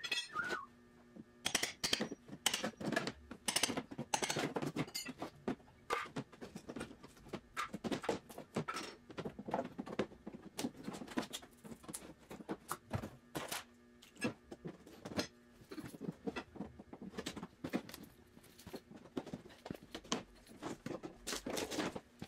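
Wooden shipping crate being taken apart by hand: a long run of irregular knocks, thumps and scrapes as its slats and panels are pried and peeled off.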